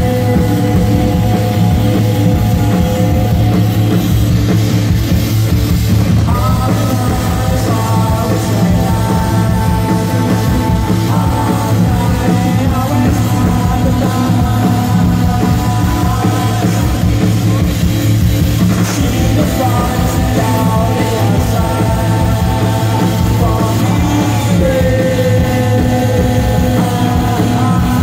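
Live rock band playing at full volume, with drums, bass guitar and electric guitars going steadily.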